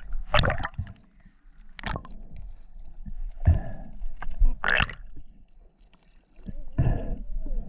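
Water splashing and sloshing in a shallow stream in several short, irregular bursts, with faint voices in between.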